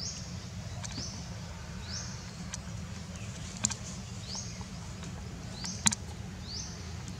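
Outdoor ambience with a small creature's high chirp repeated about once a second, each chirp sliding up quickly and then holding, over a steady low rumble. Three sharp clicks, the last near the end the loudest.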